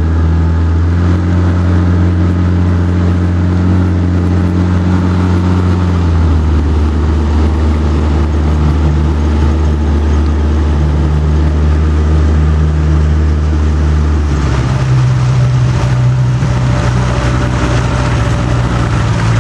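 Small boat's motor running steadily underway. Its tone shifts to a new pitch about six seconds in and again about fourteen seconds in.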